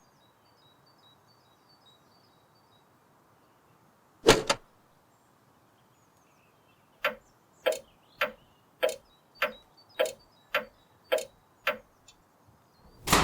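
A single sharp click, then a run of about ten sharp clicks evenly spaced a little over half a second apart, ending in a loud hit that rings out.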